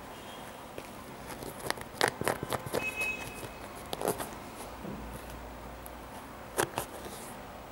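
Fingers handling a sneaker close to the microphone, pressing and tapping its leather and woven upper. It makes scattered clicks and taps, bunched together a second or so in, with a sharper pair near the end.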